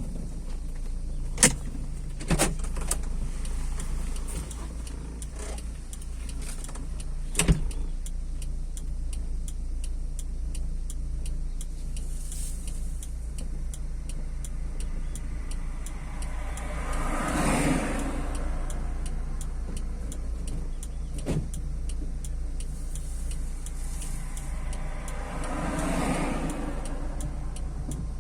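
Car driving along a highway with a steady low road rumble. A few sharp knocks come in the first eight seconds and another about two-thirds of the way through. Twice the noise swells and fades away, about nine seconds apart.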